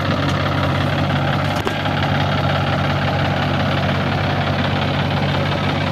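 Diesel engine idling steadily, with one short click about a second and a half in.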